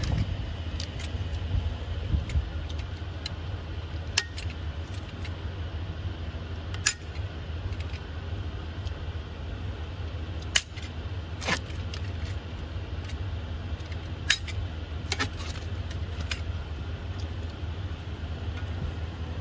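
A handful of sharp clicks and taps, scattered through, from handling a metal storage bracket and peeling and fitting its adhesive-taped backing, over a steady low hum.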